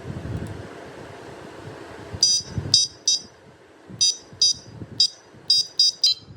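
Electronic horn of a bicycle light sounding in a string of about nine short, high-pitched beeps, starting about two seconds in, in uneven groups. Before the beeps there is a low rumbling handling noise.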